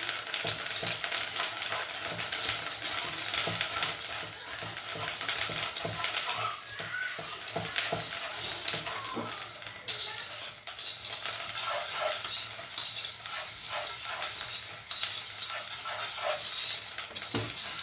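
Parboiled rice grains being dry-roasted in a saucepan and stirred steadily with a spoon: a continuous rustling hiss of hot grains, with the scrape and tap of the spoon against the pan and one sharper knock about halfway through.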